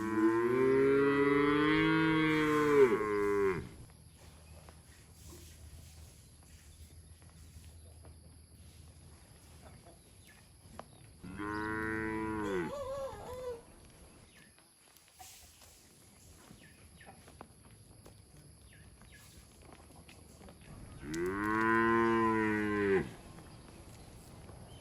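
Cows mooing: three long moos, the first and loudest at the very start, one a little before the middle, and one near the end.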